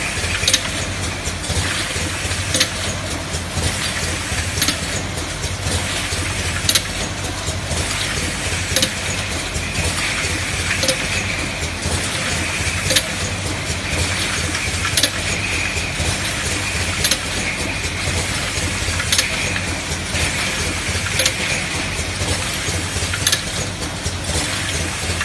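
Rotary ointment filling machine running: a steady low hum with a whirring that swells and fades in a regular cycle, and a sharp click about every two seconds.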